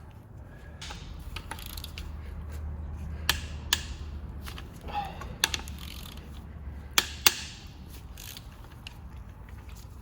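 Hand tools and metal parts of a small-block Chevy V8's bottom end being worked during teardown: irregular metallic clicks and clinks with a few sharper knocks in the middle, over a steady low hum.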